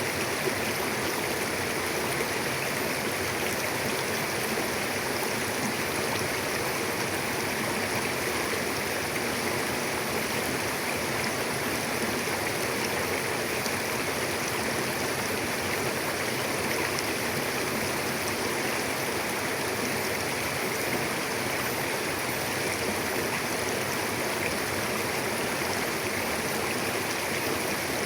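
A mountain river flowing over rocks: steady rushing and babbling water.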